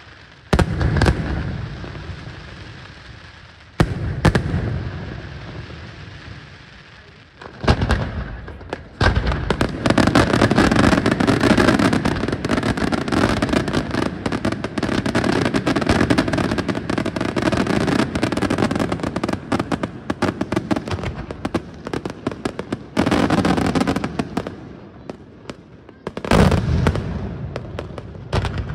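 Daytime aerial fireworks bursting overhead: single loud bangs about half a second in and near four seconds, then from about eight seconds a dense barrage of rapid bangs and crackle that runs without pause for some fourteen seconds, and two more bursts near the end.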